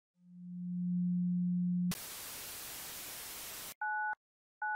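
Synthetic electronic sound effects. A steady low hum fades in and holds for nearly two seconds, then cuts to about two seconds of static hiss that stops suddenly. Then come two short beeps, each made of two high tones sounding together.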